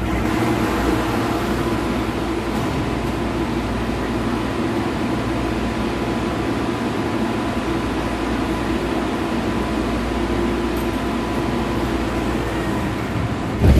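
Interior noise of an MTR A-Train (Adtranz-CAF electric multiple unit) car in a tunnel: a loud, steady rush with a constant hum. It cuts off suddenly with a sharp click near the end.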